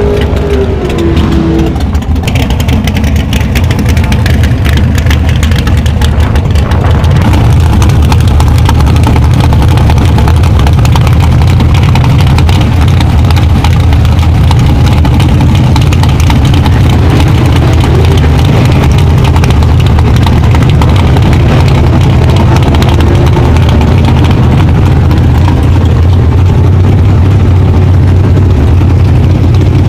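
Chevy V8 in a drag-racing MINI Clubman running at a steady idle, loud and close.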